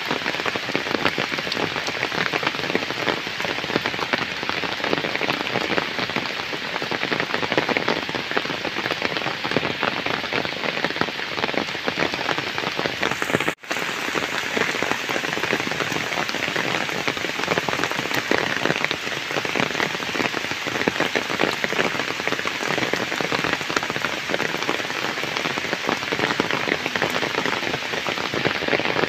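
Heavy rain pouring steadily onto flooded ground and puddles, a dense patter of countless drops. The sound drops out for a split second about halfway through.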